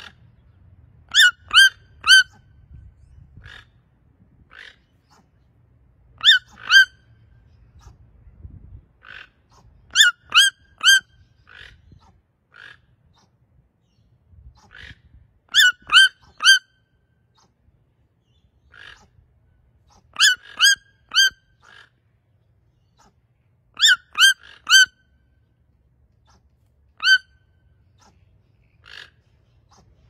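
Red-billed toucan giving loud yelping calls in groups of two or three sharp, upward-hooked yelps, about every four seconds, with fainter calls from toco toucans answering in between.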